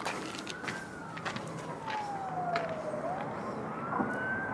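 Emergency vehicle siren wailing: a single tone that climbs and falls slowly, peaking about a second in and again near the end.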